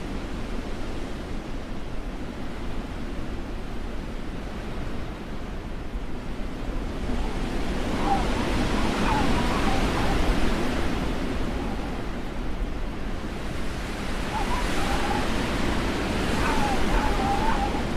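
Blizzard wind blowing as a steady rushing noise. It swells in two gusts, about halfway through and again near the end, each with a wavering whistle over it.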